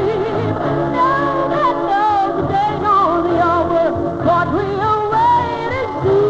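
Music with a solo voice singing an ornamented, wavering melody over steady sustained accompaniment.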